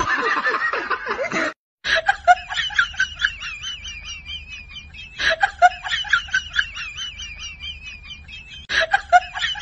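A rapid, pulsing cackle, looped three times over. It begins about two seconds in, after a short noisy stretch and a brief cut to silence.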